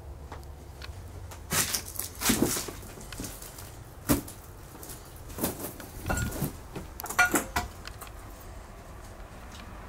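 A series of irregular knocks and clunks, several in a row, with short squeaks about six and seven seconds in, over a low steady hum.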